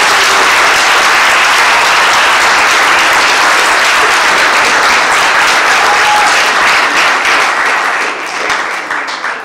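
An audience applauding loudly and steadily, tapering off near the end.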